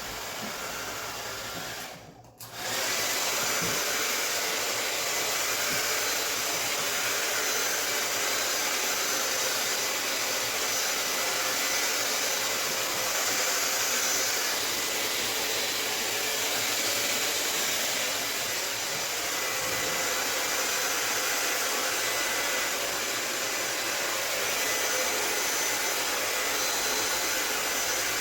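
Handheld hair dryer blowing steadily, used to push wet acrylic pour paint across a canvas. The blowing breaks off briefly about two seconds in, then runs on louder and steady with a faint fan whine.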